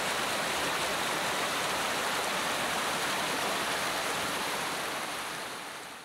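Water rushing and splashing down a small rocky waterfall, a steady even rush that fades away near the end and then cuts off.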